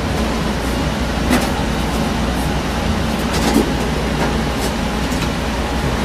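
Steady low rumble of a running HVAC furnace unit, with a few light knocks as its metal front panel is handled.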